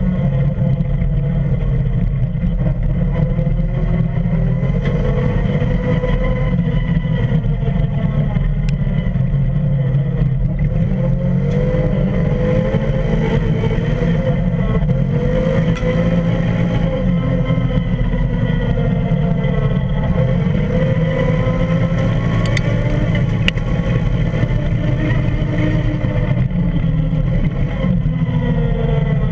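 Can-Am Commander UTV's V-twin engine running under load, its note rising and falling again and again as the throttle changes, over a steady heavy low rumble of road and wind noise picked up under the body by the wheel.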